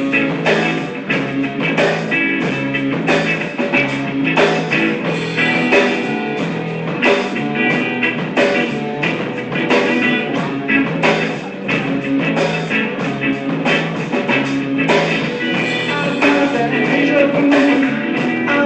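Guitar strummed in a steady rhythm, playing a song.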